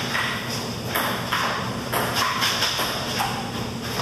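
Table tennis rally: a ping-pong ball clicking off paddles and pinging on the table, about seven quick hits at an uneven pace.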